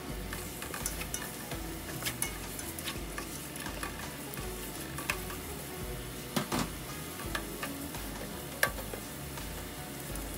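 Onion, garlic and minced pork sizzling in a nonstick pot while a spatula stirs them, with irregular clicks and taps of the spatula against the pan; the sharpest knocks come a little past the middle and near the end.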